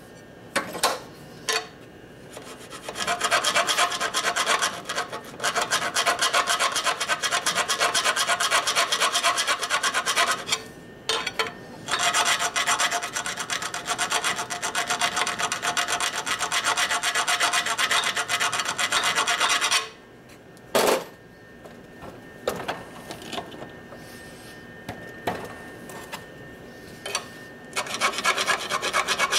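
Hand file rasping in fast strokes along the plate slots of a Harley-Davidson shovelhead clutch basket clamped in a vise, filing off burrs that the clutch plates have worn in, notches that make for hard shifts. The filing runs in two long spells with a short break between them. Later there are a couple of sharp knocks and lighter scraping, and fast filing starts again near the end.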